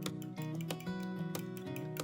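Background music: an instrumental passage of a song, with held guitar notes and sharp clicks scattered through it.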